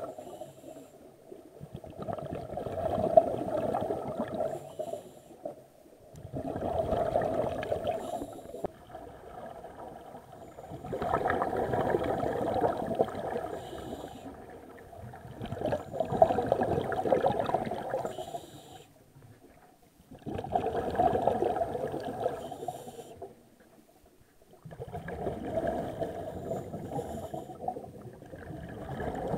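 Scuba regulator exhaust bubbles gurgling underwater as divers breathe out. Bursts of two to three seconds come about every four to five seconds, with quieter gaps between them.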